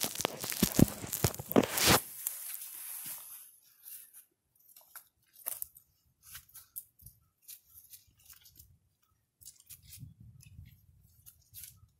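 Dry leaf litter and twigs crunching and crackling as people move through them: loud for the first few seconds, then only faint scattered rustles and clicks.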